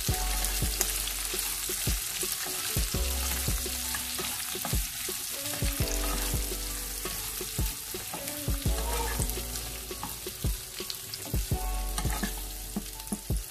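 Onion and capsicum pieces sizzling in hot oil in a coated kadhai, stirred with a wooden spatula that scrapes and knocks against the pan at irregular moments over a steady frying hiss.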